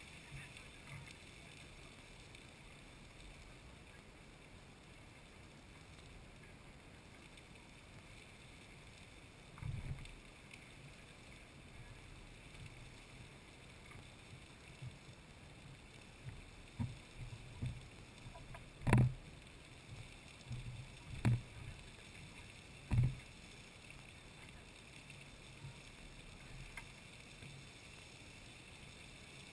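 Lady Knox Geyser erupting: a steady rush of spraying water and steam. A dull thump comes about a third of the way in, and a handful of sharp knocks fall past the middle.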